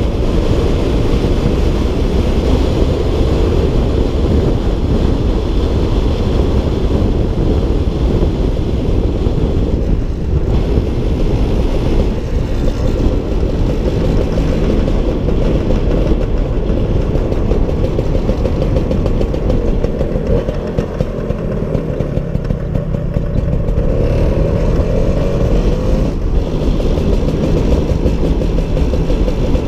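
Small motor scooter engine running steadily at riding speed under heavy wind rush on the microphone. The engine note climbs briefly about three-quarters of the way through.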